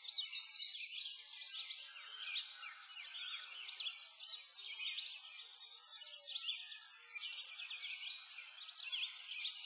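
A dense chorus of many small birds chirping and twittering, high-pitched calls overlapping continuously with quick rising and falling notes.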